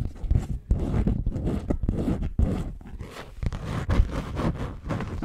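Bee's Wrap packaging, a printed paper sheet, crinkled, rubbed and scratched with long fingernails right at the microphone, in quick irregular crackles and scrapes.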